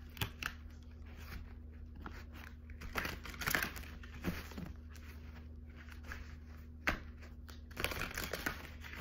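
Mystical Cats Tarot cards being shuffled by hand: short bursts of card rustling and flicking at irregular intervals, over a steady low hum.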